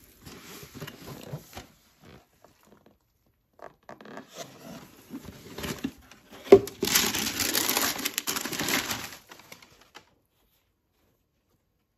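Boot box and its packaging being handled: rustling and crinkling in bursts, a sharp knock about six and a half seconds in, then about two seconds of louder rustling.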